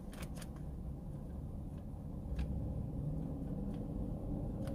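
Quiet room tone: a low, steady hum with a few faint, short clicks.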